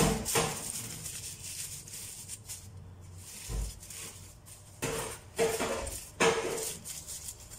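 Aluminium foil crinkling and crackling as gloved hands press and crimp it around the rim of a large stainless steel pot, in several separate bursts. Some bursts come with a knock on the pot that rings briefly.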